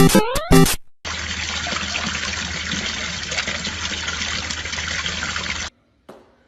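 A steady rushing noise like running water that lasts about five seconds and cuts off suddenly. It follows the end of a burst of electronic music with rising notes.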